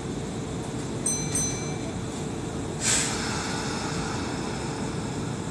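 Kintetsu 1233-series electric train standing at the platform, its equipment humming steadily over a low station rumble. Two short high beeps sound about a second in. About three seconds in comes a brief, loud hiss of released compressed air.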